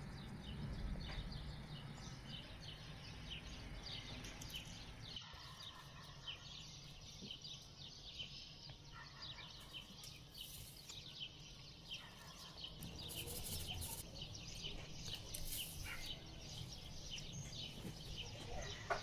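Faint background of small birds chirping over and over, with a low steady hum underneath.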